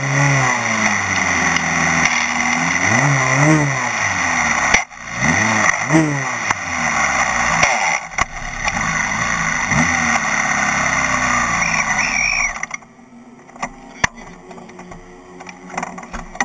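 A single-seater race car's engine running while the car sits stationary, revved briefly several times, then stopping abruptly about three-quarters of the way through. After that come scattered knocks and rubbing as the driver climbs out of the cockpit.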